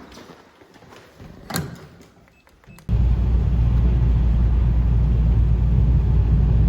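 Faint room sound with one short knock about a second and a half in, then an abrupt cut to a loud, steady low rumble of a car being driven.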